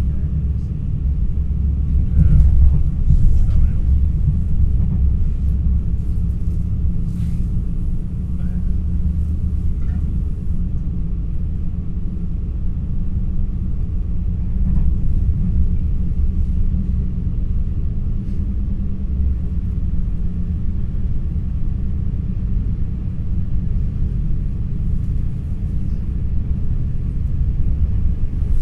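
Steady low rumble of an NS ICNG electric intercity train running, heard from inside the passenger car, with a few faint clicks and a slight swell a few seconds in.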